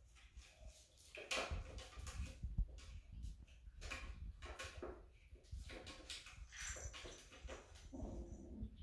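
Bengal kittens playing: faint, irregular clicks, rustles and light knocks of paws and toys on a wooden floor, with soft low bumps underneath.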